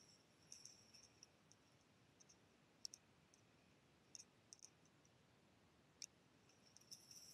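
Near silence, with faint, scattered high-pitched clicks and ticks at irregular intervals.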